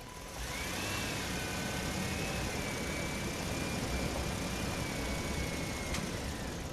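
Truck engine idling. About half a second in, a loud hiss with a high, steady whine joins it and lasts several seconds, ending with a click near the end.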